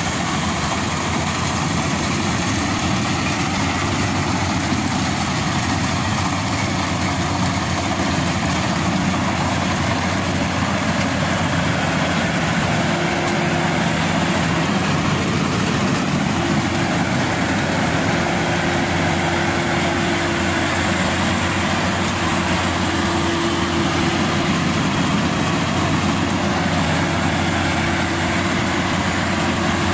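Maxxi Bimo Evo Xtreme rice combine harvester running steadily while harvesting: its engine and cutting and threshing machinery working under load. A thin steady whine joins about halfway.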